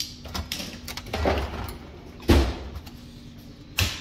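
Metal parts clunking and knocking at a bench vise as the halves of an air-seeder disc-opener bearing housing are fitted back together around a new bearing. There are a few separate knocks, the loudest about halfway through, and another near the end.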